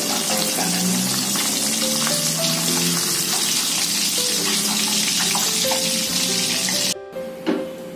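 Hot cooking oil sizzling and bubbling in a wok after deep-frying a tilapia, under background music. The sizzle cuts off suddenly about seven seconds in.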